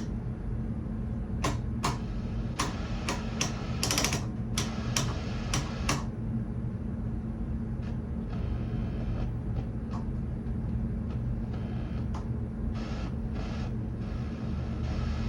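A run of sharp mechanical clicks, about ten in the first six seconds, then a few fainter ones, typical of a tube television's rotary channel tuner being turned through its detents. Under them is a steady low hum from the powered-up set.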